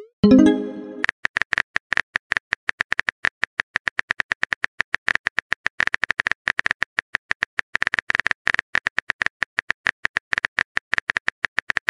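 Keyboard typing sound effect: a rapid, even train of key clicks, many per second, as a chat message is typed out. A short pitched tone sounds just after the start, before the clicks begin.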